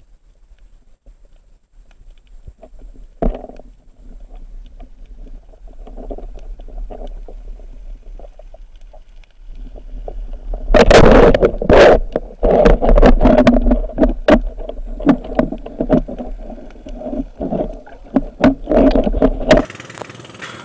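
Muffled water noise and knocks from a camera moving in the sea. It is faint at first and turns loud and irregular about halfway through, then the sound changes abruptly near the end.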